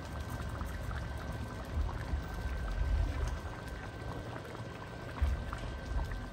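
Thick beef caldereta sauce simmering in a stainless pan, bubbling with many small pops and crackles as it reduces, over a low rumble.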